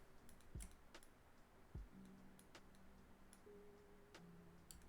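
Near silence with a few faint clicks of a computer mouse and keyboard, two of them a little louder, about half a second and nearly two seconds in, over a faint low hum.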